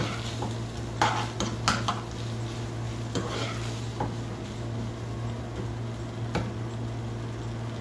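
Spoon stirring chili sauce in a frying pan, clinking and scraping against the pan several times, over a steady low hum.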